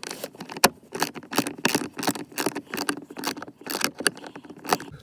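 Ratchet wrench with an 8 mm socket clicking in short irregular runs while turning out a bolt, with metal tools rattling.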